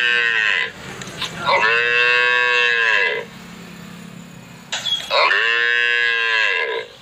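A calf mooing in high-pitched, drawn-out calls: one ending just after the start, then two more of about a second and a half each, a couple of seconds apart.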